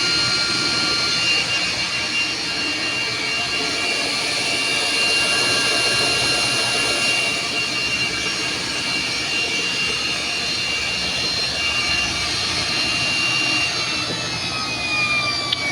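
Samsung front-loading washing machine on full spin at about 1000 rpm: its brushed motor gives a steady high whine over the rush of the spinning drum, and the pitch falls in the last couple of seconds as the spin begins to slow. It is running smoothly with its carbon brushes replaced and the E3 motor error cleared.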